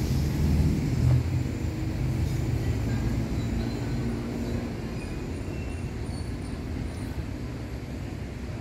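Diesel engine of a truck-mounted mobile crane running with a steady low rumble. It is louder in the first second or so, then settles a little quieter.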